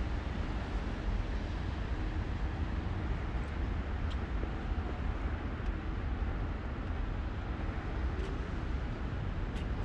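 Steady low rumble of city background noise, with a few faint ticks.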